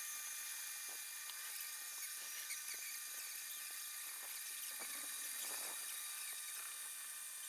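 Horizontal metal-cutting bandsaw working through steel channel, heard faintly as a steady high whine with small ticks and squeaks from the blade.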